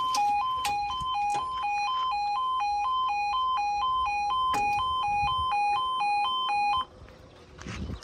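Level crossing yodel alarm sounding a warning as the barriers lower, a loud two-tone warble alternating rapidly between two pitches. It cuts off suddenly about seven seconds in, as the barriers come down.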